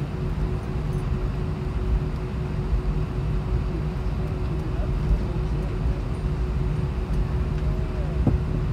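Cabin noise of an Airbus A320 taxiing after landing: a steady low rumble with a constant hum.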